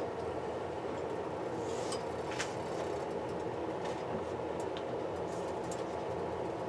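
Steady low kitchen hum with a few faint ticks, while oil heats quietly in a nonstick frying pan and has not yet begun to sizzle.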